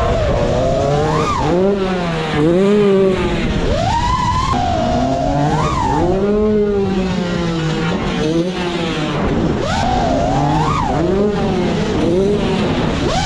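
FPV quadcopter with Ethix Stout 2306 1750 kV brushless motors, its motors and propellers whining. The pitch swoops up and drops again every second or two as the throttle is punched and chopped through freestyle manoeuvres.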